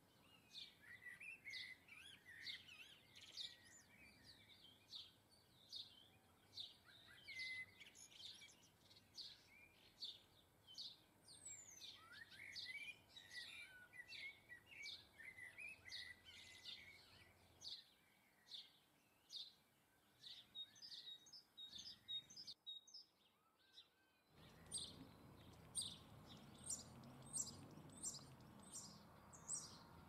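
Small garden birds chirping, a quiet run of short high chirps about two a second, with a burst of busier twittering partway through. Near the end the chirps go on over a louder steady background hiss.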